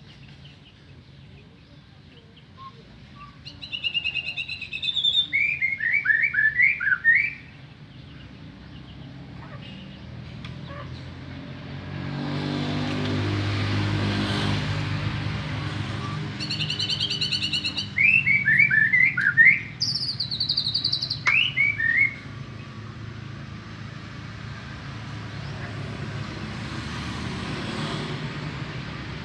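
White-rumped shama (murai batu) singing two loud song phrases, each opening with high notes and breaking into a quick run of short dropping notes. Between the phrases a low engine hum swells and fades, like a vehicle passing.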